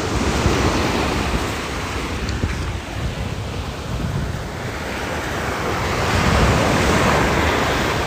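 Sea surf washing up the beach, rising in two surges with the louder one near the end, with wind buffeting the microphone.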